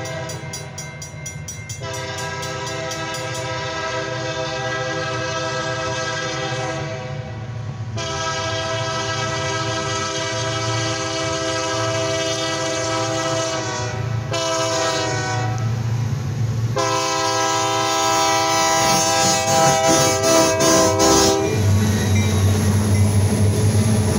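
DeQueen & Eastern GP40-series diesel locomotive air horn sounding the grade-crossing signal: two long blasts, a short one, then a final long one. Near the end the locomotives' engines rumble past at the crossing, growing louder.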